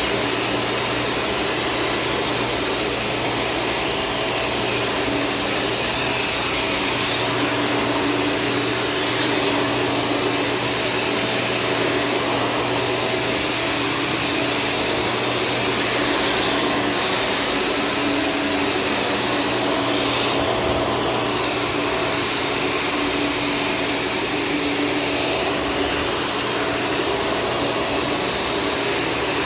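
Shark Stratos vacuum cleaner running steadily, a constant motor whine over the rush of air.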